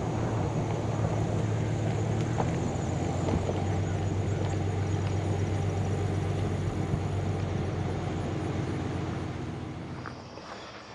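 A motor vehicle's engine running steadily, a low even hum that fades out near the end, where a high steady chirring of insects comes in.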